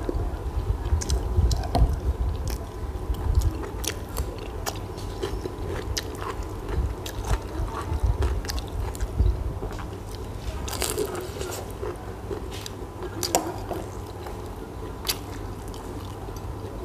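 A person chewing and biting into bread close to a clip-on microphone, with a metal spoon scraping and clicking against a glass bowl of dip several times.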